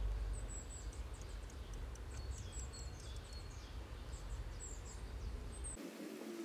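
Small birds chirping: many short, high chirps over a steady low rumble. Near the end the background changes abruptly, the rumble stops, and a faint wavering hum comes in.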